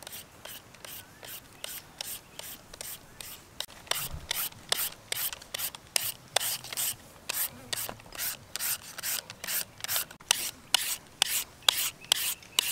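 Hand-held papaya shredder raking thin strips off a peeled green papaya: a rhythmic rasping scrape, about three strokes a second, getting louder a few seconds in.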